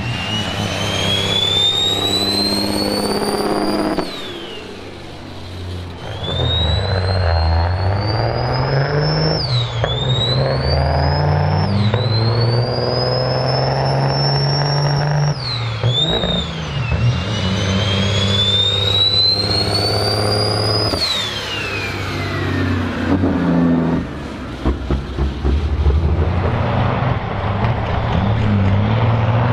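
Turbocharged diesel semi truck accelerating hard through the gears. Its engine note and a high turbo whistle climb in pitch and fall back sharply at each of several gear changes. The whistle fades out after about twenty seconds while the engine sound carries on.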